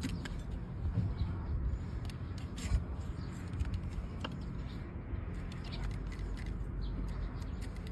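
A hoof-trimming blade cutting and paring an overgrown donkey hoof: scattered short scraping cuts and clicks over a steady low rumble.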